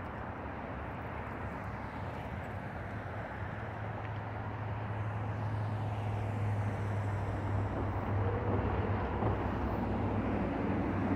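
Outdoor ambience with a distant engine's low, steady hum that grows gradually louder through the second half.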